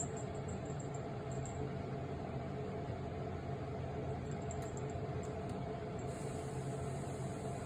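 Steady mechanical hum of a running household appliance, holding the same few low tones throughout, with a few faint light ticks over it.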